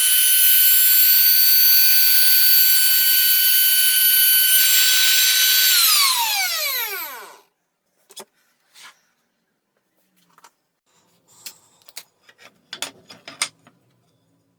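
Electric router motor running at full speed with a steady high whine, then switched off about six seconds in and spinning down with falling pitch. A few light knocks and clicks follow.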